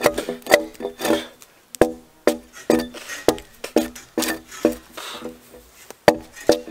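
Background music: plucked-string notes in a quick, steady rhythm.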